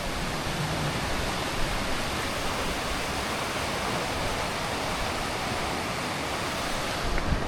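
Steady rushing of a gorge stream's flowing water, even and unbroken, with a short knock near the end.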